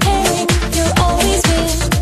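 Background dance music with a steady kick drum, about two beats a second, under a melody.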